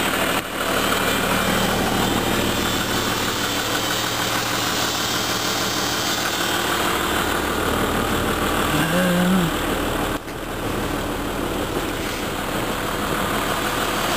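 Snowmobile trail groomer's engine idling steadily, with a short pitched tone about nine seconds in.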